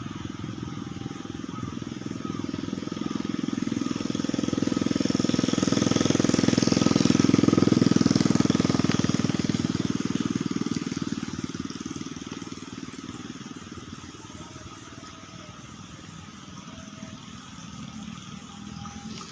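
A motor vehicle engine passing by. It grows louder over several seconds, peaks about seven seconds in, then fades away.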